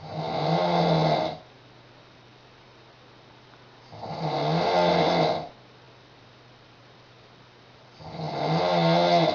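A woman snoring heavily in her sleep: three long snores about four seconds apart, each swelling up and then stopping sharply.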